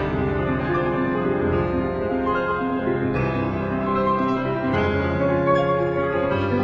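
Background music led by piano, a run of held notes changing steadily.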